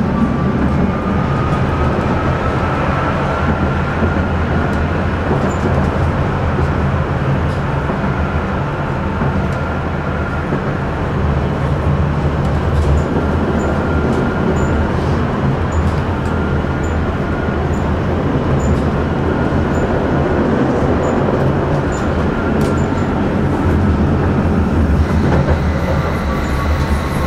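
Tram running on its rails, heard from inside the passenger car: a steady low rumble of wheels on track, with a faint whine that slowly rises and falls and a few sharp clicks.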